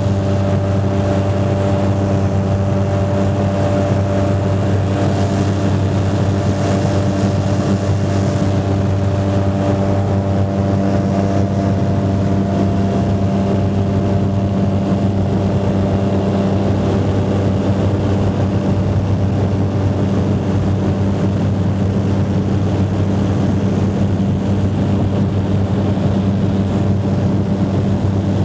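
Ski plane's propeller engine running steadily: a loud, constant low drone with a few steady tones above it and no change in pitch.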